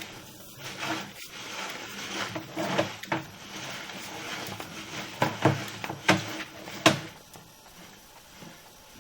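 Sewer inspection camera being pushed along a drain line: irregular knocks and rattles, with a few sharper clunks between about five and seven seconds in.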